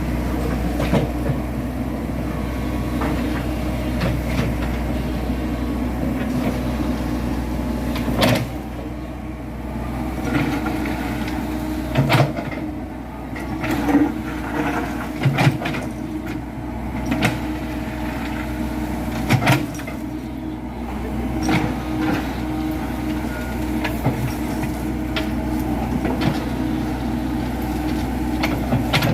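Komatsu PC78 excavator's diesel engine running steadily with a constant hum, while several sharp knocks and clanks from the working machine come at uneven intervals.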